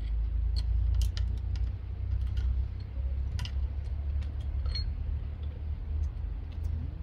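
Scattered light metallic clicks and clinks of rescue gear, carabiners and harness hardware being handled at a rescue tripod, over a steady low rumble.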